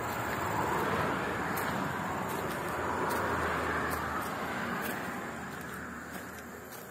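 Road traffic noise: a passing vehicle's noise swells over the first couple of seconds and then fades away toward the end.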